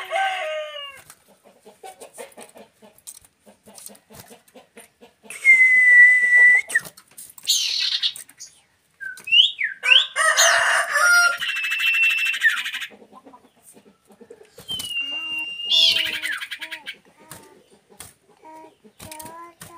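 Common iora calls: a long steady whistle about five seconds in, then rising whistles and busy chattering trills, and another whistle that falls away near the end. Domestic chickens cluck low in between and in the last few seconds.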